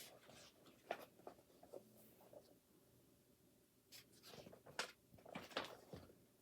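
Near silence with faint paper rustling and a few soft clicks and knocks from handling, clustered about a second in and again from about four to six seconds.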